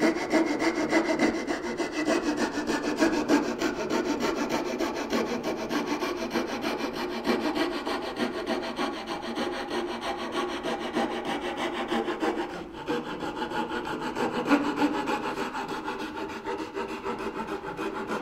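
Coping saw cutting along the profile of a piece of wooden molding in quick, even strokes, the blade back-beveled and left to cut without being forced, to cope the end for an inside-corner joint. The sawing stops for a moment about two-thirds of the way through, then carries on.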